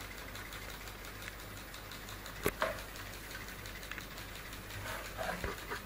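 Candle-heated put-put (pop-pop) steam boat running on water, a faint steady puttering. Two sharp clicks come about two and a half seconds in, and a few small knocks near the end.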